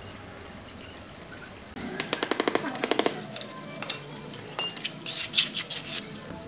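Trowel working sand and cement around a concrete mould: a rapid run of sharp taps lasting about a second, then scattered scrapes and taps.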